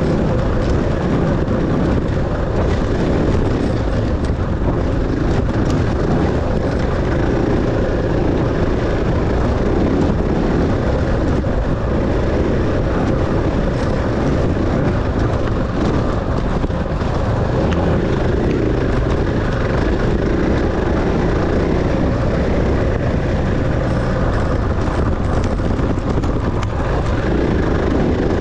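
Dirt bike engine running continuously while being ridden in an enduro race, a loud, steady drone with no pauses.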